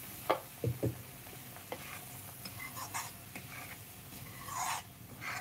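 Perforated steel spoon stirring a watery masala paste in a metal kadhai, with light sizzling and scattered clinks and scrapes of the spoon on the pan.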